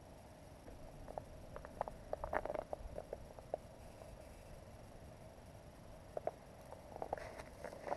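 Scattered light clicks and crunches of ice-fishing rods and reels being handled on the ice, in two clusters: one to three and a half seconds in, and again near the end.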